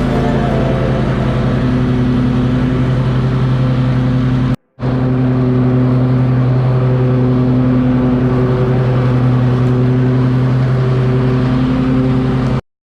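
Riding lawn mower's engine running steadily under load. The sound drops out for a moment about four and a half seconds in and cuts off abruptly near the end.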